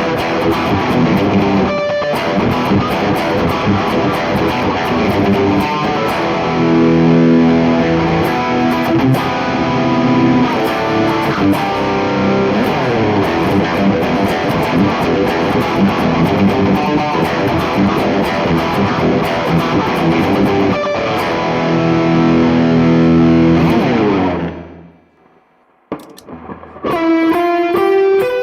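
Electric guitar through a high-gain distortion tone, playing dense riffs with held chords that die away about 24 seconds in. After a pause of about two seconds, a single-note lead line with sustained, bent notes begins.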